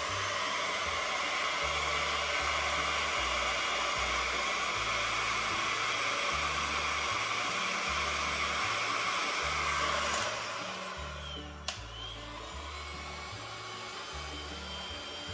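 Makita heat gun blowing hot air with a steady rushing noise. The noise drops to a lower level about ten seconds in, followed by a single click. Background music with a bass line plays underneath.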